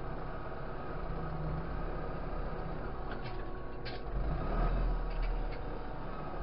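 Tractor engine running, heard from inside the cab, rising in load for a moment about four seconds in. A few short knocks come from the loader and bodywork between about three and five and a half seconds in.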